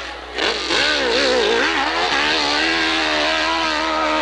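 Hillclimb motorcycle engine revving hard as the bike climbs a steep dirt hill. Its pitch wavers up and down with the throttle for the first second or two, then holds fairly steady.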